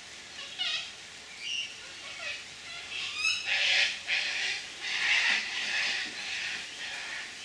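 Sulphur-crested cockatoos giving harsh, rasping squawks, one after another. The loudest calls come about halfway through and again a little later.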